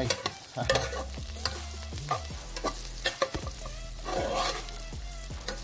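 Onion, garlic and ginger frying in hot oil in a granite-coated pot, sizzling, while a spatula stirs them with repeated scraping strokes against the pan, a few a second.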